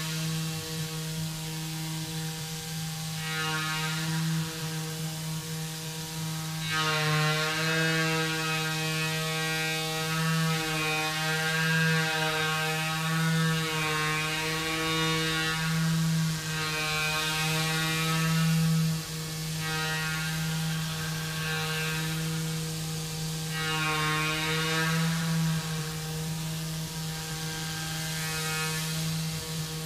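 Tormach 440 CNC mill's spindle running as an end mill cuts aluminum: a steady hum with a stack of higher tones above it that swell and waver several times as the cut loads and unloads.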